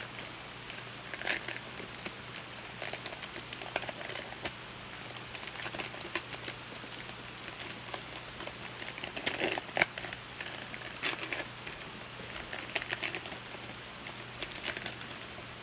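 Trading card wrapper crinkling and cards being handled as a box-loader pack is opened, giving irregular small clicks and rustles over a faint steady low hum.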